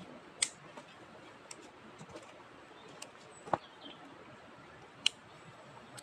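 Wood campfire crackling: scattered faint ticks and three sharp pops, about half a second in, in the middle, and near the end.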